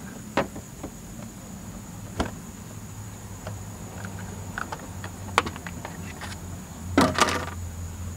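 Scattered sharp clicks and knocks of plastic trim pins and a trunk trim panel being pried out and moved, with the loudest cluster about seven seconds in. A steady high-pitched tone runs underneath.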